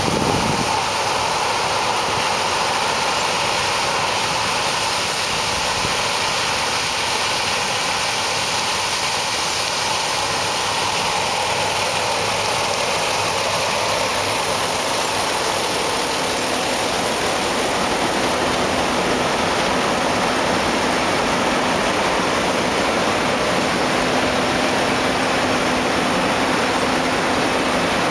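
John Deere combine harvester with a Fantini 12-row sunflower header running while harvesting sunflowers: a steady, even rushing noise of engine and machinery, with a low hum of the engine coming through from about halfway.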